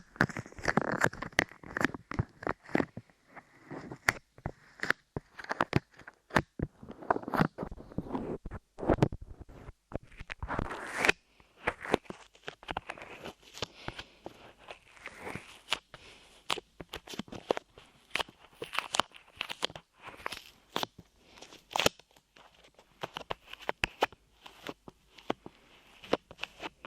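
Light clay pressed, squished and pulled against a microphone's ears, giving close, irregular sticky crackles and clicks with rubbing in between.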